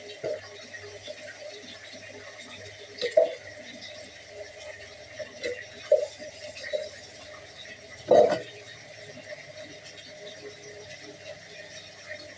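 Dishes being handled in a kitchen sink: scattered short knocks and clinks, the loudest about eight seconds in.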